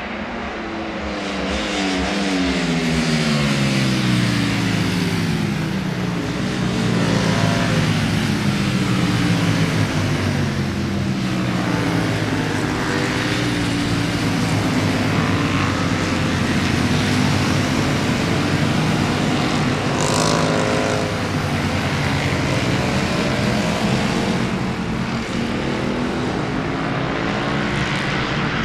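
Several Ducati Panigale V4 superbikes racing past one after another, their V4 engines at high revs, the pitch of each falling as it goes by.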